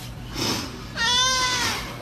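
Domestic cat meowing once, a single drawn-out meow starting about a second in that falls slightly in pitch at its end, after a short breathy sound.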